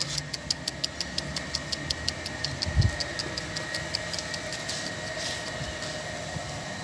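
Cats crunching dry kibble: a quick regular run of small crisp clicks, about five a second, that fades out about halfway through, over a faint steady hum. One dull bump about three seconds in.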